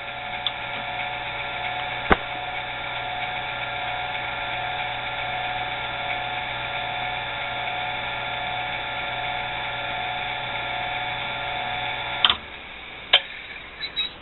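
Dayton 115-volt two-speed electric motor running on its low-speed winding, freshly rewired from high to low: a steady hum and whine, with one sharp click about two seconds in. It cuts off abruptly with a click near the end, followed by a couple of clicks.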